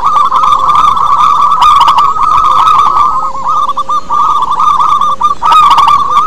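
Zebra doves (perkutut) cooing: a loud, continuous run of rapid trilled coos that never breaks.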